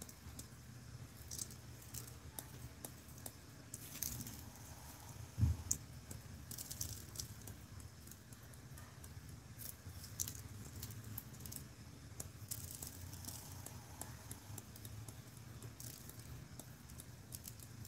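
Faint rattling and ticking of fine glitter shaken out of a small plastic jar onto a tumbler, with a single soft thump about five and a half seconds in, over a low steady hum.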